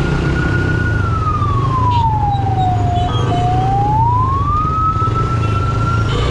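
A motorcycle's engine runs under a thin, high whine. The whine slides down over about two seconds, breaks off for a moment, climbs back up, holds, and then stops abruptly near the end.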